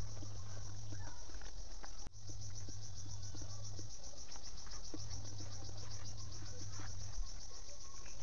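Insects trilling steadily in the background, a high continuous pulsing note that dips briefly about two seconds in. Under it, a low hum switches on and off a few times, with faint clicks of chewing and fingers picking food off a banana leaf.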